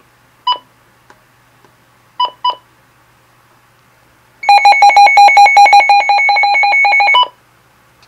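Electronic beeps from a tabletop radio as its buttons are pressed: a single beep, then two quick beeps. Then, about four and a half seconds in, the radio sounds a loud, rapid pulsing alarm tone for about three seconds before it stops.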